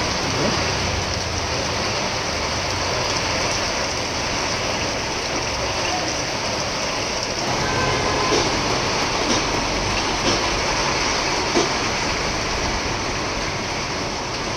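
Heavy rain pouring steadily, a dense even hiss, with a few faint clicks about once a second in the second half.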